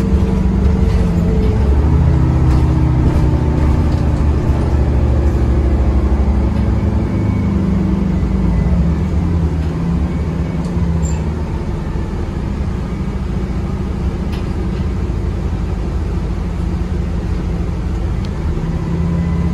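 Cummins B6.7N natural-gas engine of a Grande West Vicinity transit bus, heard from inside the rear of the cabin, pulling the bus along through its Voith four-speed automatic. The engine note climbs in pitch over the first several seconds, falls away around nine to ten seconds in and runs lower and steadier, then rises again near the end.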